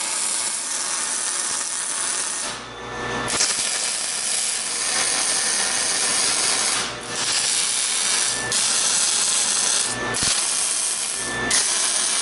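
Electric arc welding on steel: a steady sizzle of the arc laying weld beads, stopping briefly about five times as the arc breaks and is struck again.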